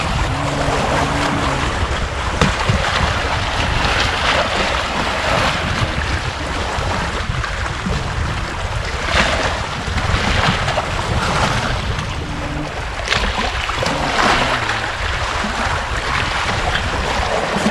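Wind buffeting the GoPro HERO7's built-in microphone as a heavy low rumble, over the wash of waves on the shore that swells and fades every second or two.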